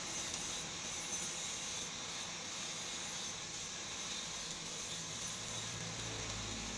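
Coal forge fire hissing steadily under a forced-air blast, with a low hum joining about five seconds in.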